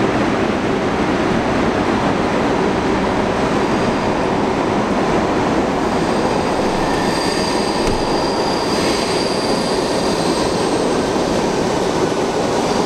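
New York City subway shuttle train pulling into an underground station: a steady loud rumble of wheels on rails. About halfway through, high wheel squeal joins in and fades out near the end.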